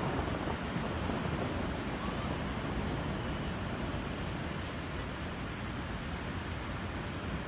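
Steady downpour of rain and hail hissing down, with a low rumble underneath.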